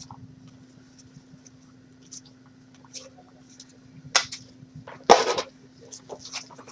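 Trading cards and plastic card packaging being handled on a table: light taps and rustles, with a sharp rustle about four seconds in and a louder, longer one about five seconds in.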